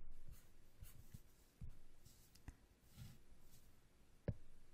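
Quiet room tone with a few faint soft taps and one sharp click about four seconds in.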